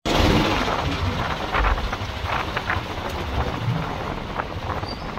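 Auto-rickshaw under way: its small engine running and the open cab rattling over the road, with wind buffeting the microphone. Short clatters come through the steady road noise.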